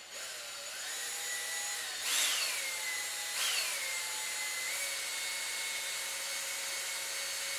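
Ryobi cordless drill spinning a graphite-coated pipe cleaner inside a pinewood derby wheel's bore, burnishing the graphite in. The motor whine climbs as it spins up, jumps higher and settles back twice, about two and three and a half seconds in, then runs steady.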